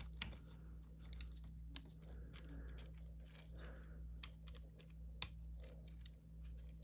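Small, quiet plastic clicks and taps from a plastic Transformers action figure being handled and its joints posed, with two louder clicks, one near the start and one about five seconds in. A steady low hum runs underneath.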